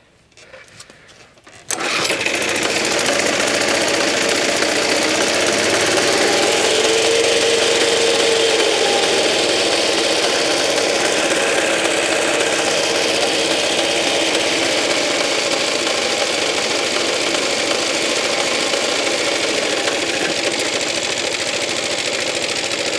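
Suffolk Super Punch mower's small four-stroke single-cylinder engine is pull-started and catches abruptly about two seconds in, then runs steadily. Its speed rises and falls briefly a few seconds after it catches. It is starting after the contact-breaker points were regapped and cleaned, the owner having put the earlier non-starting down to no spark.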